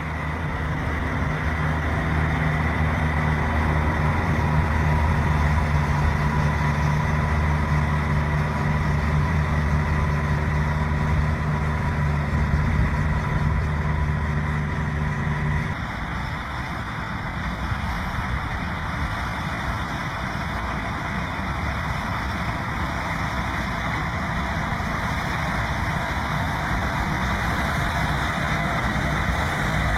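Combine harvester running steadily while harvesting corn, with a deep, even engine hum. About halfway through the sound changes abruptly to a broader rumble without the hum.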